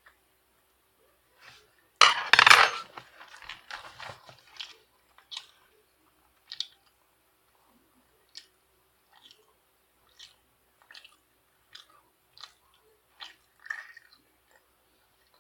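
Mouth noises of eating crunchy food close to the microphone: a loud crunching bite about two seconds in, followed by a run of short, crisp chewing crunches about once a second.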